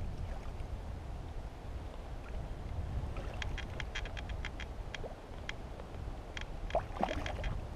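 Fishing reel drag clicking in quick, even runs as a hooked rainbow trout pulls line beside the kayak, first about halfway through and again near the end, over a steady rumble of wind and water on the microphone. A short splash comes among the later clicks.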